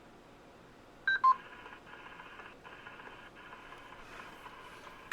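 Short electronic beeps from a DMR ham radio's speaker, then about four seconds of steady multi-tone electronic audio with a couple of brief dropouts, ending in a click.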